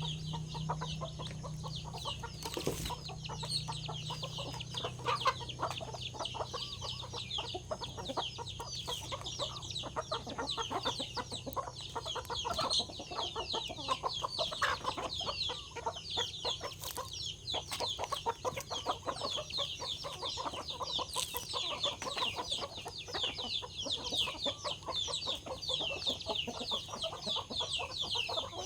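A group of chickens calling without a break: a dense chatter of short, high, falling peeps over lower clucks, with a few sharp knocks.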